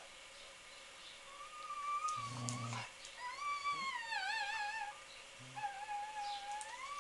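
Dog whining: three long, wavering, high whines one after another, the middle one trembling near its end.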